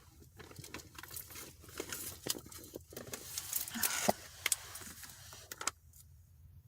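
Faint rustling and scattered small clicks and taps of objects being handled, with a short breathy noise about four seconds in; it goes almost quiet near the end.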